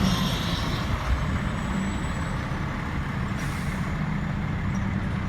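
Fire truck engine running in a steady low rumble as the tail of a siren wind-down fades out in the first moments, with a short hiss of air about three and a half seconds in.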